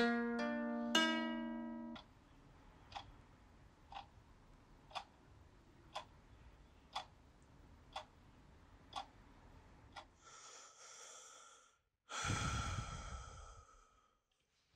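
A ukulele chord is strummed twice and rings out. A clock then ticks about once a second for several seconds. Near the end a person breathes in and lets out a long sigh.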